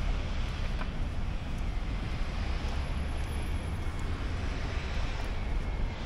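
Steady city street ambience: a low rumble with an even hiss above it, traffic noise mixed with wind on the microphone.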